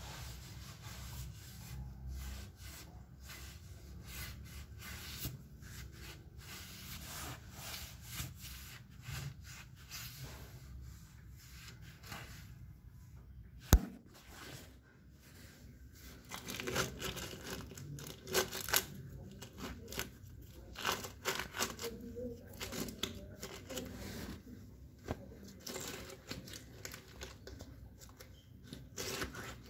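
Close rubbing, rustling and scraping right at the microphone, with scattered clicks and one sharp knock about 14 seconds in; the scraping grows busier a couple of seconds later.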